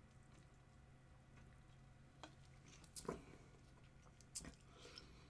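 Faint gulping of carbonated Sprite drunk straight from the bottle, with a few soft swallowing clicks about two, three and four and a half seconds in.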